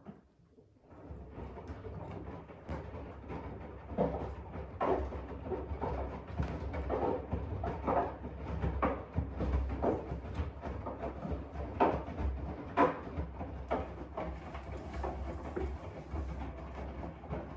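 AEG 7000 Series front-loading washing machine in its main wash: about a second in the drum starts turning, and wet laundry sloshes and thuds irregularly over a steady low motor hum.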